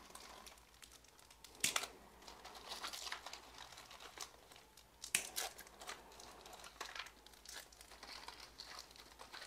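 Plastic packaging crinkling and rustling as the wrapped cakes are handled, with a few sharp crackles, the loudest about two seconds in and again about five seconds in.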